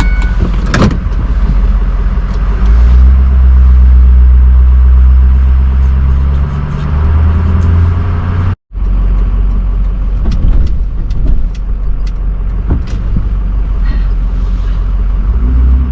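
Vehicle engine and road noise heard from inside the cab while driving off: a steady low drone whose pitch steps up about two and a half seconds in and changes again around seven seconds, with a momentary dropout just past halfway.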